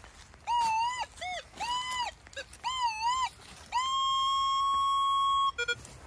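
Metal detector sounding over a buried metal target: a string of short warbling beeps near 1 kHz that bend up and down, then one long steady tone lasting about two seconds that cuts off suddenly.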